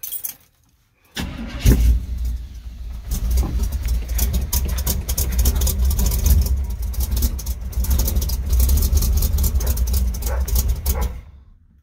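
1977 Chevrolet C-10's 454 big-block V8 cranked and firing up about a second and a half in, then running steadily with a deep, low exhaust note until it cuts off near the end.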